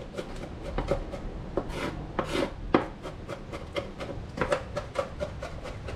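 Small knife chopping garlic cloves on a plastic cutting board: irregular knocks of the blade on the board mixed with scraping, a few a second, with one sharper knock a little before halfway.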